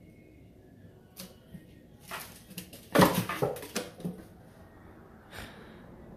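A cat batting a small toy ball into a cardboard box: a quick run of knocks and scrapes on the cardboard, loudest about three seconds in, with one more light tap near the end.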